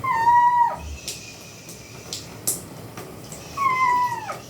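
Domestic cat meowing twice in protest at being bathed: two long calls, each dropping in pitch at the end, the second about three and a half seconds after the first.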